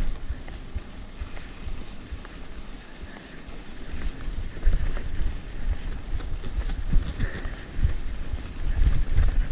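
Mountain bike rolling down a dirt trail: rumble and clatter of the tyres and frame over rough ground, with wind buffeting the camera microphone.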